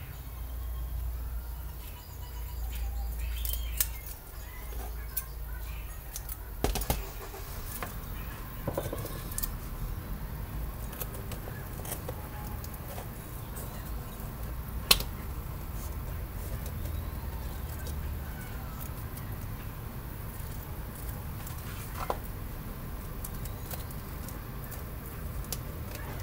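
Hands handling and fitting pieces of taped corrugated cardboard: scattered rustles, taps and small clicks, with one sharp click about fifteen seconds in. A low rumble runs underneath, strongest in the first few seconds.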